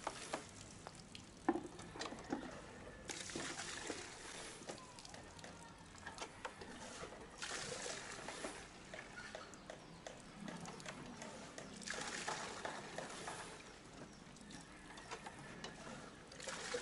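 Water splashing out of a hand-lever diaphragm pump in three surges, a few seconds apart, during its first test on water, with light clicks and knocks in between.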